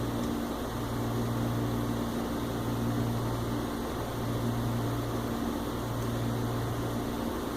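Steady low electrical hum with an even whirring hiss, as of a motor-driven fan or similar appliance running in a small room. It stays level throughout, with no tool or handling noises.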